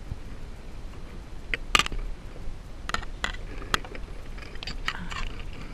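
Telephone cross-connect wire being handled on a plastic BIX punch-down block: scattered light clicks and ticks, with a small cluster of them about two-thirds of the way through.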